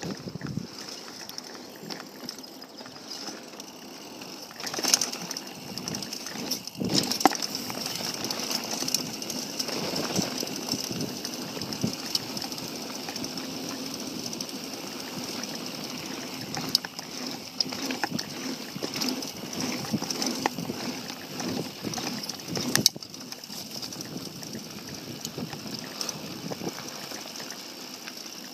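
Mountain bike ridden over a dirt trail: steady rolling noise from the tyres with rattling and clicking from the bike, and sharp knocks from bumps, the loudest about 5, 7 and 23 seconds in.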